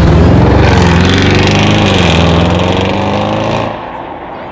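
Audi RS6 C7's twin-turbo 4.0 V8 accelerating hard past close by through an aftermarket exhaust, its note rising and falling in pitch as it pulls through the revs. About three and a half seconds in the sound drops sharply to a quieter, duller engine rumble as the car pulls away.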